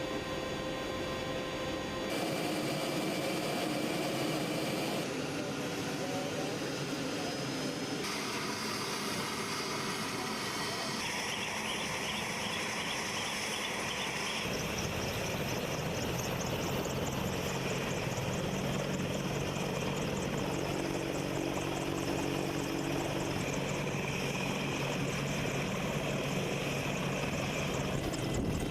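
Helicopter turbine engines and rotors running steadily, the sound changing abruptly every few seconds as one clip cuts to the next.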